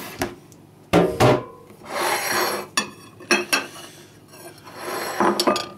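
Ceramic plates and a bowl clattering and knocking as they are handled and set down on a table. The loudest clatter comes about a second in, a scraping rub follows around two seconds, and a few more sharp clinks come near the end.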